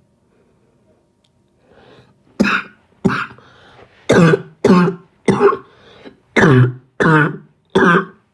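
A person coughing in a fit of about eight hard, voiced coughs, starting about two seconds in, with short breaths drawn between them.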